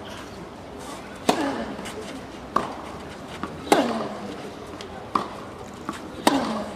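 Tennis rally, racket strokes on the ball about every 1.3 s: five hits, louder near-side strokes alternating with fainter far-side ones. Each loud near hit comes with a short grunt falling in pitch.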